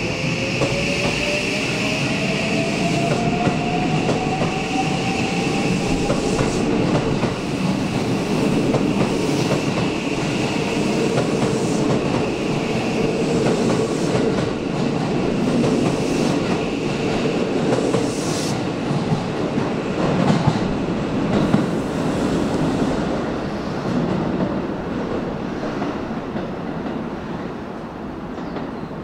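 JR West 323-series electric train pulling away. Its traction motors give a whine that climbs in pitch over the first several seconds as it accelerates, over steady rolling noise on the rails. The sound eases off near the end as the train draws away.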